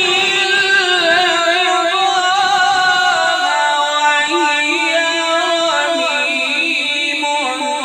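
A man's voice in melodic Quran recitation (tajweed), drawing out one long phrase without a break. The voice wavers in quick ornaments and steps gradually lower in pitch.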